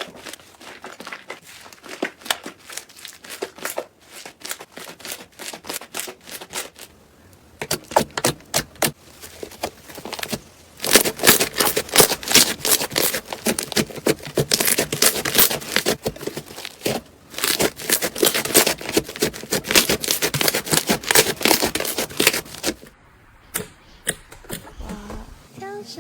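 Slime being squeezed and worked by hand, making rapid crackling and popping clicks that grow louder and denser about eleven seconds in, then thin out again near the end.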